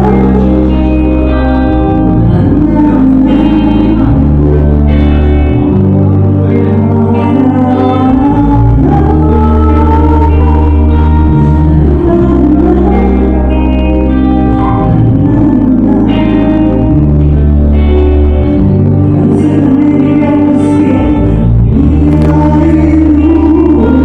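A woman singing live into a microphone over loud accompaniment through PA speakers, with a bass line that changes about every two seconds.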